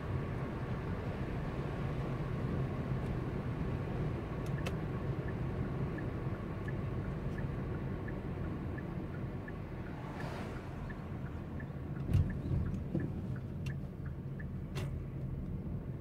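Car driving, heard from inside the cabin: a steady low rumble of engine and tyre road noise. A faint regular ticking about every 0.7 s joins about five seconds in, and there is a brief thump near twelve seconds.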